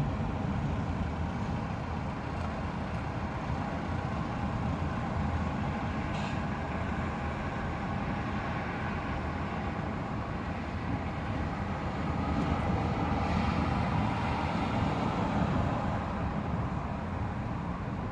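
Thunderstorm: a long, low, rolling rumble of thunder over a steady hiss of rain, swelling a little about twelve seconds in.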